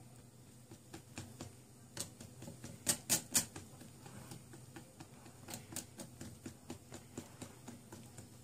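Metal hand whisk clicking and knocking against a glass bowl while folding flour into a thick cake batter. Irregular clicks, three louder knocks about three seconds in, then a run of light taps about three a second.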